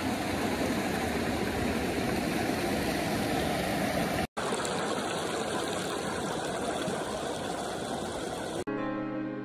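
Mountain stream rushing and splashing over boulders, a steady noise broken by a brief cut about four seconds in. Music comes in near the end.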